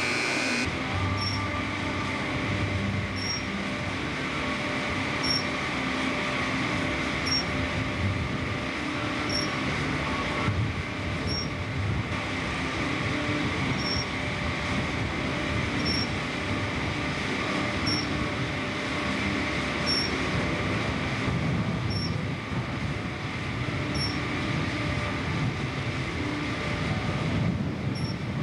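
Diesel engine of a John Deere 444E wheel loader running steadily as the loader works, a continuous heavy mechanical rumble.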